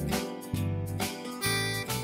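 Background music of strummed acoustic guitar chords, a new chord about every half second.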